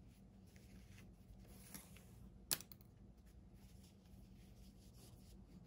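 Faint rustling of a fabric strip being wrapped around piping cord, with one sharp click about two and a half seconds in.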